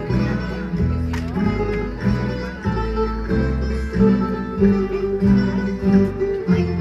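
Folk dance music played on guitars and other plucked strings, with low notes repeating in a steady rhythm.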